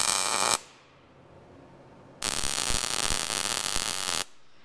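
MIG welding arc running in two bursts: one cuts off about half a second in, and a second weld of about two seconds starts just after two seconds in and stops abruptly.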